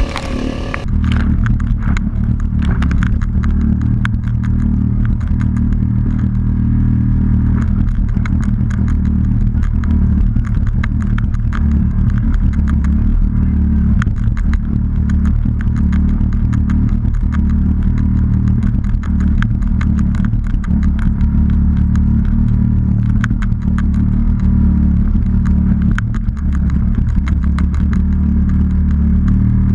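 Kayak running fast through a choppy sea: a loud, steady low rumble, with constant splashing and slapping of spray off the bow.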